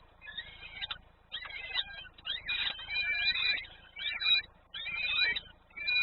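Small birds chirping: quick, sweeping whistled calls, several overlapping, in irregular bursts with short pauses.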